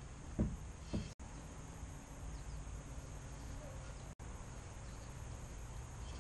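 Quiet outdoor background noise, with two short, soft knocks about half a second and a second in.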